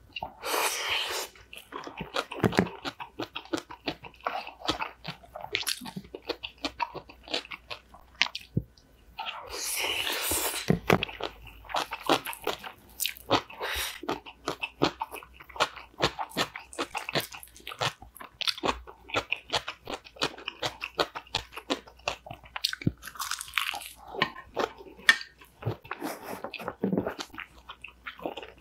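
Close-miked eating sounds: crunchy biting and chewing of cucumber bibimbap, with crisp crunches from the raw cucumber salad and pickled cucumber (oiji). Two longer hissing stretches come near the start and about ten seconds in.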